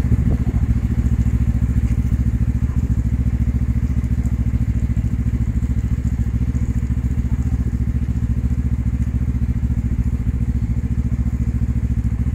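Fire engine's diesel engine running steadily with a low, even pulsing hum, driving the truck's pump for the hoses connected at its rear.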